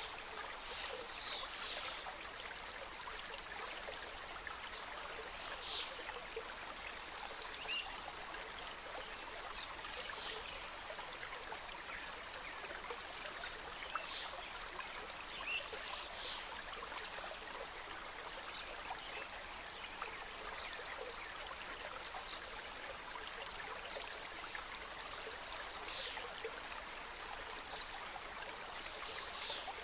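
Mountain stream cascading over rocks: a steady rush of water with brief brighter splashes here and there.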